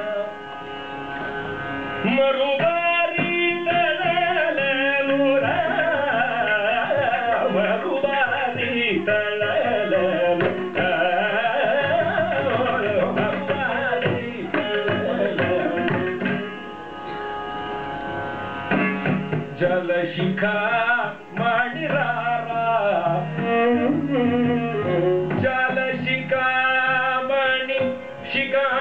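Carnatic classical music: a male voice sings ornamented, gliding melodic lines, closely followed by a violin. A mridangam and a ghatam play rhythm beneath.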